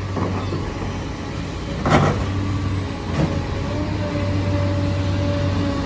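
Excavator engine running steadily, with two short knocks about two and three seconds in, then a steady pitched whine over the engine.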